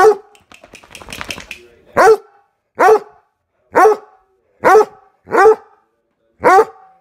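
Redbone coonhound barking, worked up and mad from being teased in play: about seven short, loud single barks, each dropping in pitch, roughly one a second. There is a rustle of scuffling movement in the gap after the first bark.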